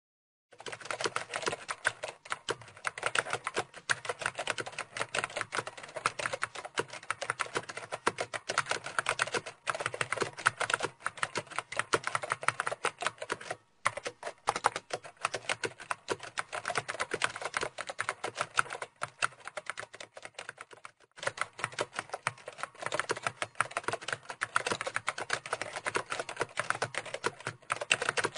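Fast, continuous typing on a computer keyboard, starting about half a second in. It has two brief pauses, one near the middle and one about three-quarters of the way through.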